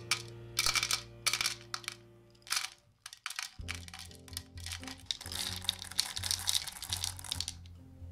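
Callebaut ruby chocolate callets dropping into a glass measuring cup. A few separate clinks come first, then a dense rattling pour that lasts a few seconds from about halfway through. Soft background music plays underneath.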